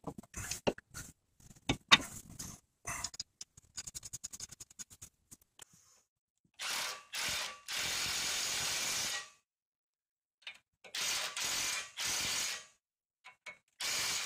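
Light metallic clicks and rattling as the nut is started on the outer tie rod end stud. Then a cordless impact wrench runs the nut down in bursts, one of about three seconds and then several shorter ones, tightening it.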